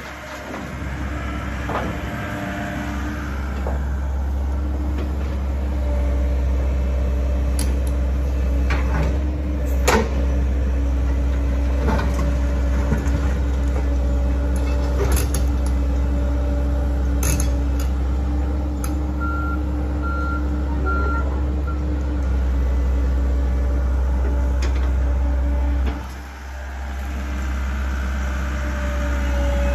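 Komatsu hydraulic excavator's diesel engine running steadily under load with a steady hydraulic whine as it digs and loads rubble, with sharp knocks of concrete debris now and then. Three short beeps come about two-thirds of the way through, and the engine note dips briefly near the end.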